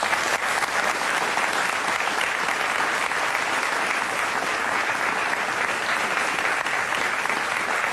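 Studio audience applauding steadily as guests come on.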